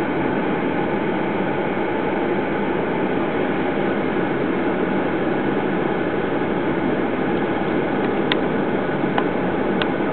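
Steady noisy hum of a vehicle engine idling, with a few faint clicks near the end.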